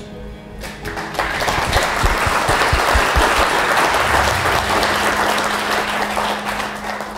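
A room of wedding guests applauding at the end of a speech: dense clapping starts about a second in, holds, and fades away near the end.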